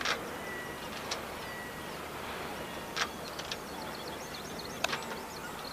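Outdoor ambience: a steady background hiss with scattered bird calls, about five short sharp calls and faint high chirps later on.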